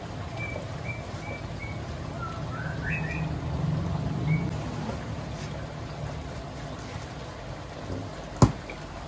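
Water and koi sloshing out of a plastic bag into a plastic basin, with the bag rustling, over a steady trickle of water. Birds chirp a few times in the first three seconds, and a single sharp click comes near the end.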